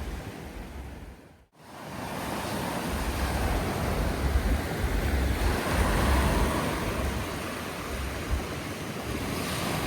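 Ocean surf washing in, with wind buffeting the microphone in low rumbles. The sound cuts out briefly about a second and a half in, then returns.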